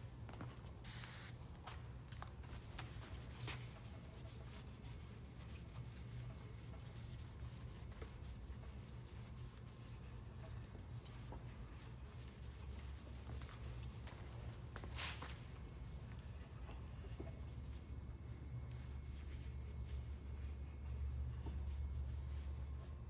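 Faint rubbing and scratching handling sounds over a steady low hum, with a brief louder swish about fifteen seconds in.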